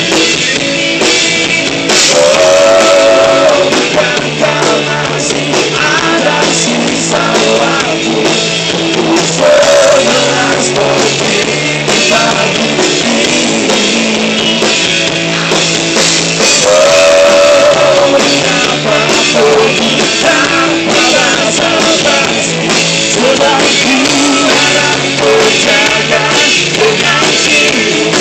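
Live rock band playing loud: electric guitar, bass guitar and drum kit, with a lead singer's vocals over them.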